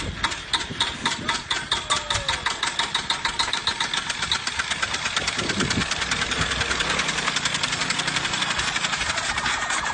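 Small engine of a homemade motorcycle running with a rapid, even firing beat that quickens over the first few seconds, then holds steady.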